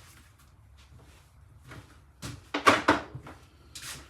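Handling knocks and clanks of metal parts and tools while a British Seagull outboard motor is being dismantled: quiet at first, then a few sharp knocks about two and a half to three seconds in and a short scrape near the end.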